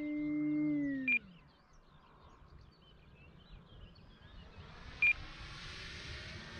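The electric motor of a Carbon-Z Cessna 150T RC plane whines steadily, then winds down and fades as the throttle is cut about a second in. Two short high electronic beeps from the radio transmitter sound about a second in and again near five seconds, over a faint hiss that builds toward the end.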